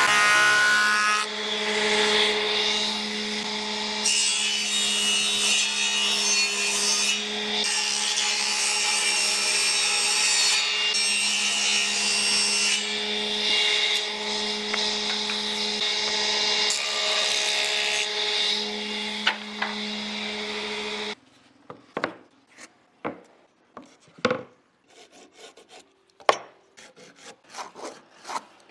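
Electric power tool working wood: a steady motor hum under a loud, rasping cut or sanding noise. It cuts off suddenly about 21 seconds in. Scattered sharp taps and knocks of wood being handled follow.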